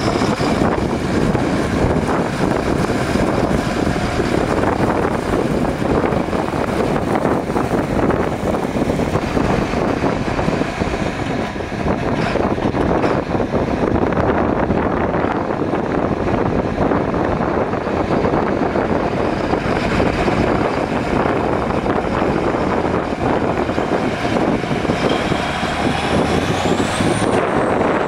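John Deere 8570 tractor's six-cylinder turbo diesel running steadily, the tractor driving off by the end. A faint rising whistle near the end.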